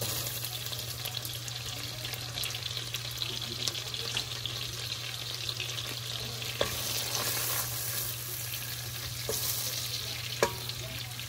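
Chopped garlic sizzling in melted butter in a stainless steel pot, stirred with a wooden spoon that knocks against the pot a couple of times.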